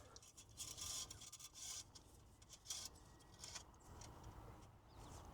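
Near silence, with a few faint, brief rubbing scrapes.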